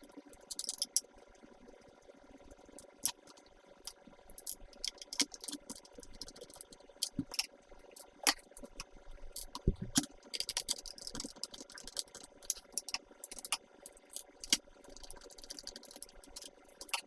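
Irregular clicks, taps and light rattles of hard plastic parts of a Dyson V10 vacuum cleaner being handled and fitted together during reassembly.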